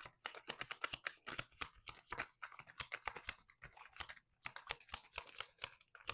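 Tarot cards being shuffled and handled: a quick, irregular run of soft card snaps and slaps.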